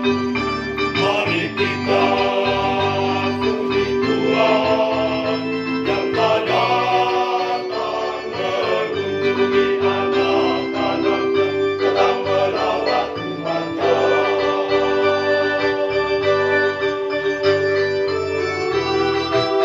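Church choir singing a hymn to electronic organ accompaniment, the organ holding chords over a steady pulsing bass line; it is the opening hymn of a Catholic Mass.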